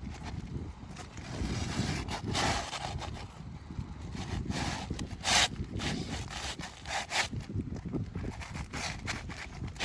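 Irregular scraping, rubbing and knocking of a tool working under asphalt roof shingles to pry them loose, with one sharp knock about five seconds in.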